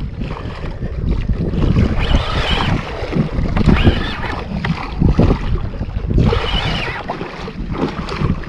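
Sea water sloshing and splashing against a kayak hull, with wind buffeting the microphone.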